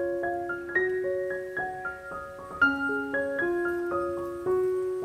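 Background piano music: a slow melody of single notes, each left to ring and fade.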